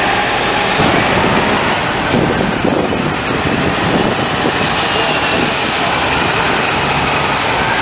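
City buses and other traffic driving past close by: steady, loud engine and tyre noise of heavy buses moving through the street.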